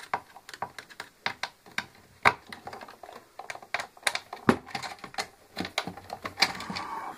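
Irregular clicks and taps of hard plastic: a steam iron's plastic housing parts being handled and pulled apart, with small screws and tools set down on a wooden workbench.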